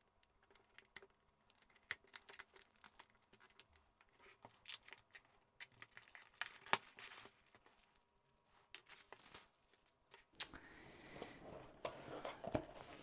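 Plastic shrink wrap on a cardboard kit box being slit and torn open: scattered faint crackles and clicks, then continuous crinkling of the plastic from about ten seconds in as it is peeled away.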